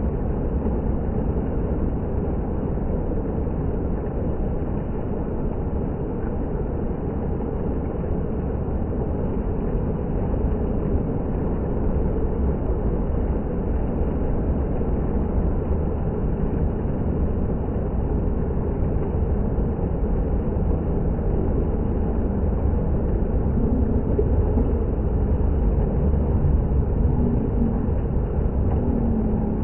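Water fountain splashing steadily, a continuous even rush of falling water.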